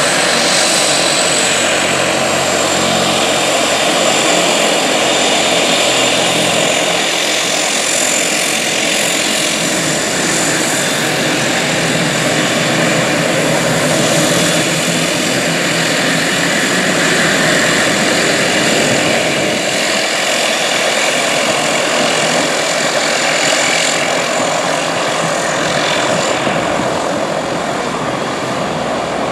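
Embraer EMB 120 Brasilia's twin Pratt & Whitney Canada PW118 turboprops running at taxi power: a steady propeller drone with a high turbine whine. It eases off slightly near the end as the aircraft turns away.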